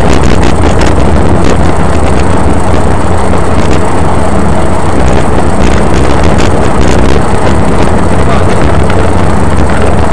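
Loud, steady road and engine noise of a moving car, heard from inside the cabin through a dashcam microphone.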